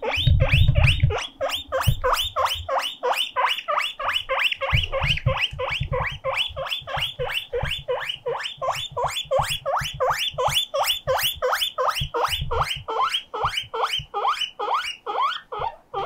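Guinea pig wheeking without a break, a siren-like string of short rising squeals at about four a second. The owner reads it as a lonely call for company.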